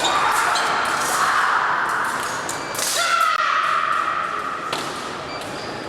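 Fencing hall sounds: a steady electronic tone from a fencing scoring machine starts about three seconds in and lasts about a second and a half. Scattered sharp clicks and knocks run through it.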